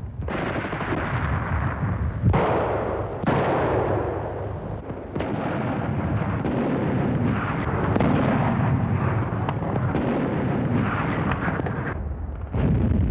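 37 mm PAK 36 anti-tank gun firing: sharp reports just after the start, about two and three seconds in, and again near five seconds, over a continuous rumble of battle noise.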